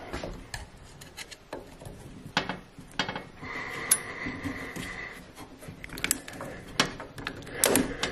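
A 230 V power plug being worked off a boiler's circulating pump by hand: scattered small plastic clicks and the rubbing of the connector and wires, with a few sharper clicks near the end.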